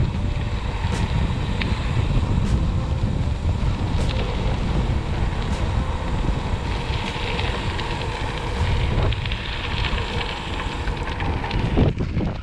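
Wind buffeting the microphone over the crunch and crackle of gravel-bike tyres rolling on a gravel road.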